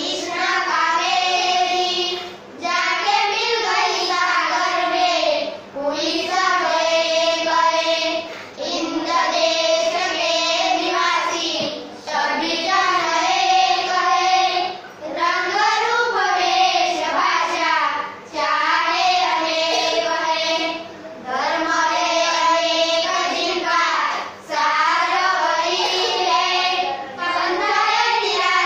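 Group of schoolchildren singing a song together in unison, in sung phrases of about three seconds with brief breaks between them.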